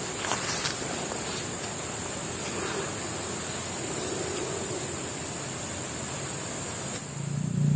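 Steady tropical forest ambience: a constant high-pitched insect drone over an even hiss, with a couple of light clicks in the first second. Near the end a low engine sound comes in and quickly grows loud.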